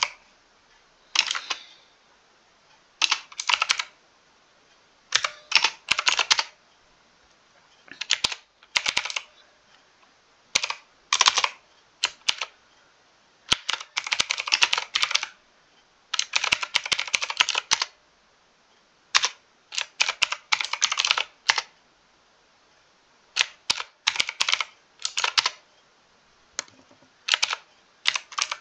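Mechanical keyboard typing in bursts of rapid keystrokes, with short pauses of a second or so between bursts.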